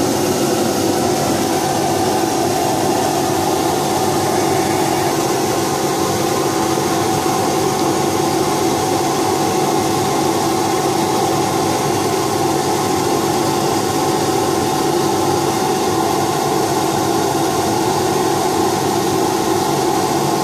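Laser cutting machine running: a steady mechanical hum and rush of air with a constant drone.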